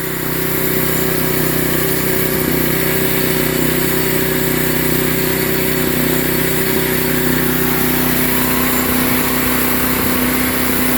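Portable band sawmill running steadily out of the cut, its engine and spinning blade making a constant hum while the saw head is lowered to the next board setting. One tone in the hum grows stronger near the end.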